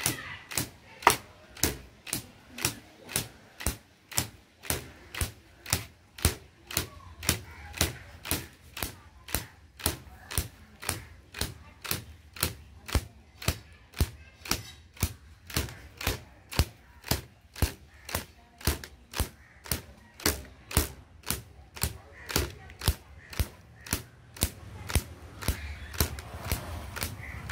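Cotton carder's bow (dhunki) having its gut string struck by a wooden dumbbell-shaped mallet (jista) in a steady rhythm of about two strikes a second, each a short sharp snap. This is raw cotton being carded and fluffed for quilt stuffing.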